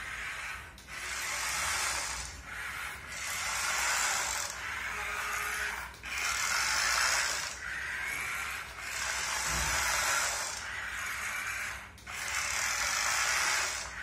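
Small electric motor and plastic gearbox of a remote-control toy skateboard whirring as it drives over a hard floor, swelling and dipping every second or two.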